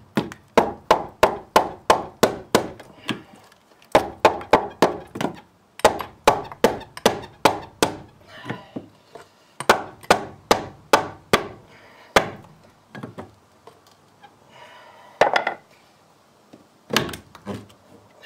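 A hammer striking a steel flat pry bar, driving it in behind an old barn board to pry it loose: fast runs of sharp blows, about three a second, with short pauses between runs and a few single blows near the end.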